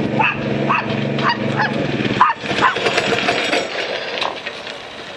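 Scooter's small gas engine running, its sound falling off about two seconds in, while a dog barks about six times.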